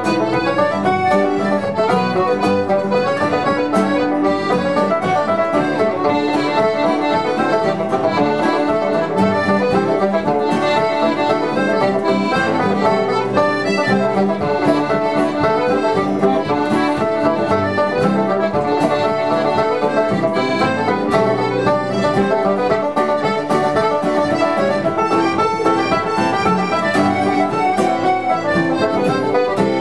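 A set of Irish reels in D played on piano accordion and banjo, with two acoustic guitars, running on without a break.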